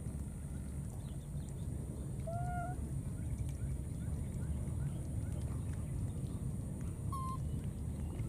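Two short pitched animal calls over a steady low rumble and a thin high hiss: one slightly arching call about two seconds in, and a shorter, higher one near the end, with a few faint chirps between them.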